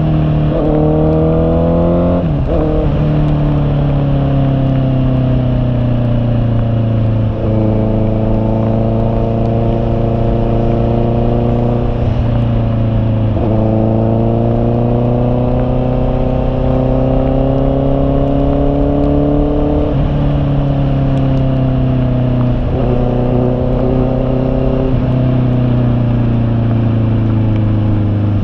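Honda CB650R's inline-four engine pulling through the gears. Its pitch climbs steadily and drops sharply at each shift, about seven times, with a couple of stretches where it eases off and falls.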